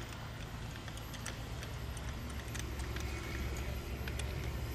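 Scattered light clicks and taps of hands working the mainsail's plastic slides and metal fittings at the mast, over a low steady rumble.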